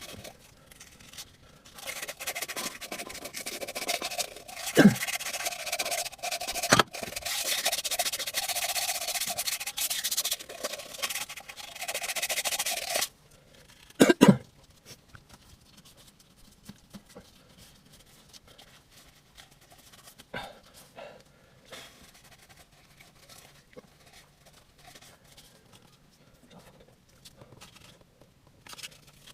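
Abrasive scrubbing or scraping against a hard surface for about eleven seconds, cutting off suddenly, with a few sharp knocks. Quieter, intermittent scratching follows.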